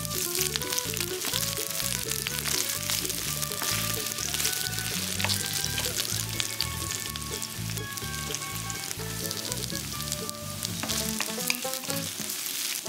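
Sliced red onions sizzling and crackling in hot oil in a stainless steel wok on high heat, the sizzle starting abruptly as they go in. Near the end carrot sticks go in as well.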